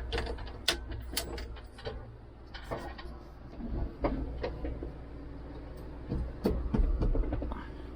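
John Deere 5055D diesel tractor idling steadily while warming up, with scattered clicks and knocks over it and a louder thump about six and a half seconds in.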